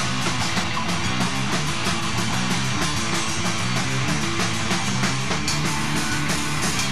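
Electric guitar and band playing rock music with a steady beat.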